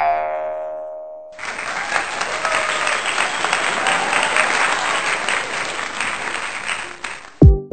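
Recorded crowd applause that starts abruptly about a second in and cuts off near the end, dropped into the soundtrack as an effect. Before it a plucked harp-like chord dies away, and an electronic drum beat comes in at the very end.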